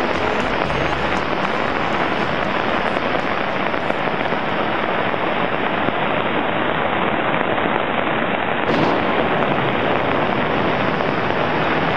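Storm runoff rushing down a concrete flood-control wash in heavy rain, a loud steady rush of water.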